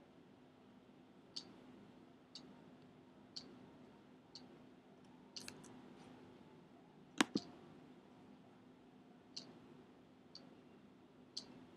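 Faint sharp clicks at an even pace of about one per second, with a louder pair of clicks about seven seconds in, over a faint steady low hum.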